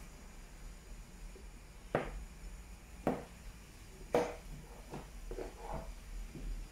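Plastic chess pieces knocked down onto a chessboard as moves are played: three sharp clacks about a second apart, then a few softer taps.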